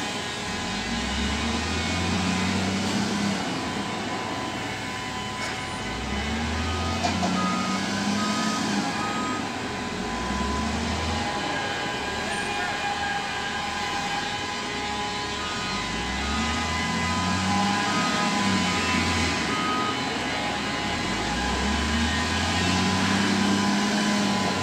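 Volvo L60F wheel loader's diesel engine working, its note rising and falling over and over as it drives and shuttles back and forth, with its reversing alarm beeping now and then.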